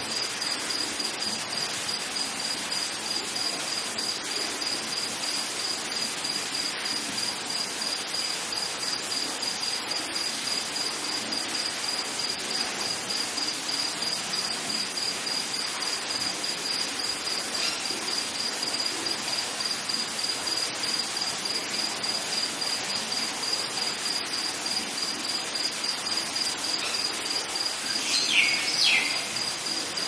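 Crickets chirping in a steady, evenly pulsing high trill over an even hiss of rain. Near the end a bird gives two short falling calls, the loudest sound.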